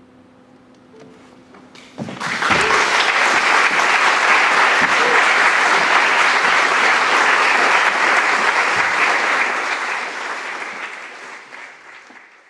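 A concert audience breaks into applause about two seconds in, after a hushed pause at the end of a string trio's piece. The clapping is dense and steady, then fades near the end.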